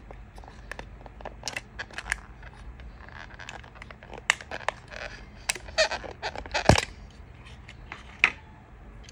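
Thin clear plastic blister packaging crackling and clicking as a 1:64 diecast model car is pried out of it by hand. A string of sharp crinkles and snaps, the loudest about two-thirds of the way through and another near the end.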